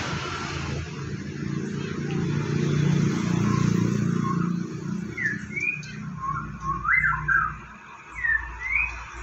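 Male white-rumped shama singing short clear whistled notes, some sliding up and some down, in a few brief phrases that start about halfway through. Before the song, a low rumble is the loudest sound.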